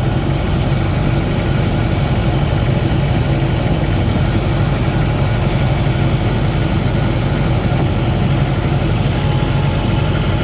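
Boat engine running steadily under way, a loud even drone that does not change.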